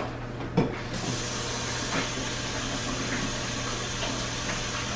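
A water tap running steadily into a sink as hands are washed, the flow starting about a second in after a couple of short knocks.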